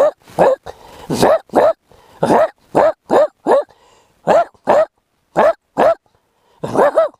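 A man imitating a dog barking with his voice: a string of short, separate barks, about two a second, with a brief pause near the end.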